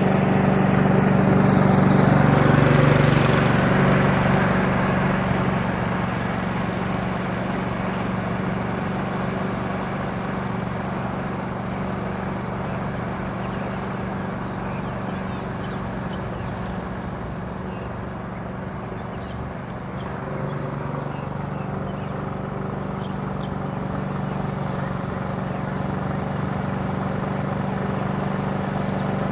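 Rotary lawn mower engine running steadily as the mower goes over the pitch, sucking up loose dead grass and debris. It is louder in the first few seconds, fades somewhat through the middle and grows louder again after about twenty seconds.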